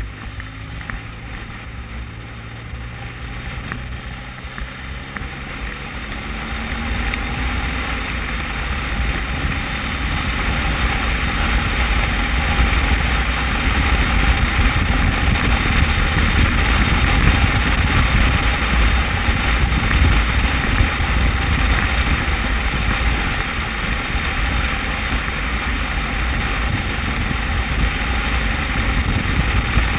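Motorcycle ridden on the open road: the engine note rises as the bike pulls away over the first few seconds, then wind noise on the microphone builds and holds steady at cruising speed.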